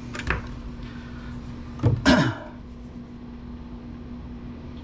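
Computer parts being handled on a workbench: a light click, then about two seconds in a short, louder knock and rustle, over a steady low hum.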